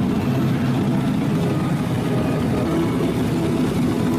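Heavy engine running steadily, a tank engine sound effect.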